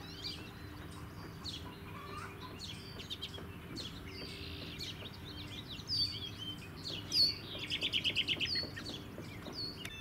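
American robin calling among other birds' chirps: short, sharp high notes scattered throughout. A quick run of about ten evenly spaced notes comes about eight seconds in.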